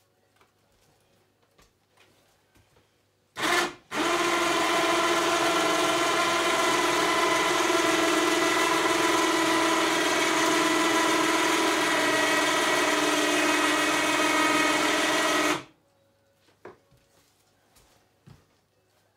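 12-volt ATV (four-wheeler) winch hoisting a wolf carcass: a short blip of the motor, then about twelve seconds of steady electric motor whine under load that cuts off abruptly.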